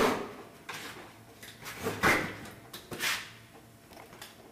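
Painted canvas being cut by hand: a few short noisy cutting strokes, at the start, about two seconds in and about three seconds in, with quieter rustling of the canvas between.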